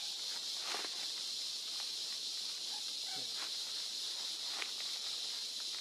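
Steady high insect drone of a tropical forest, with a few faint short calls and soft rustles over it.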